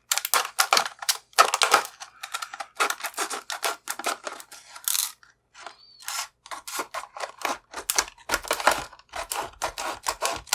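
Fiskars cutters snipping and crunching through the thin stainless steel shell of a cheap round-body padlock: a rapid, irregular series of sharp metallic clicks and crunches, with a short pause about five seconds in.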